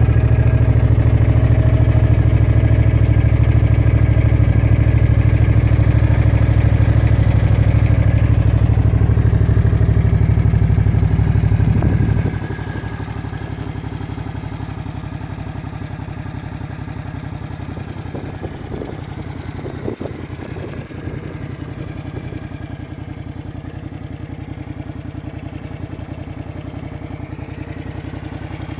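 Suzuki M800's V-twin engine idling steadily. It is louder for the first twelve seconds or so, then drops suddenly and runs on quieter, with a couple of small knocks along the way.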